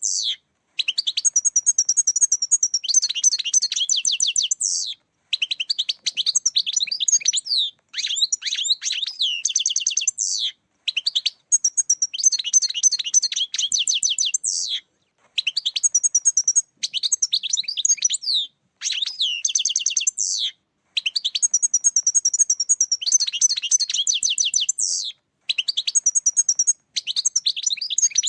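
European goldfinch song: quick, twittering, trilling phrases a couple of seconds long, about nine of them in a row with short pauses between. It is played as a lure call to draw goldfinches in for catching.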